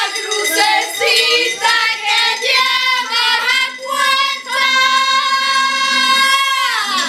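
A female voice singing a pop tune with music, ending on one long held note of about two seconds that glides down at the end.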